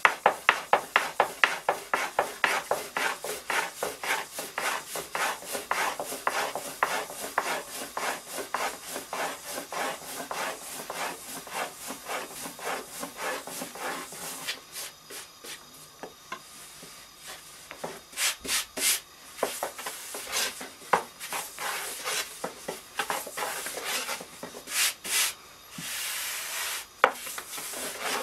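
Long, thin wooden rolling pin rolling gözleme dough out thin on a floured wooden board: quick, even back-and-forth rubbing strokes for about the first half, then slower, more spread-out strokes with a few louder ones.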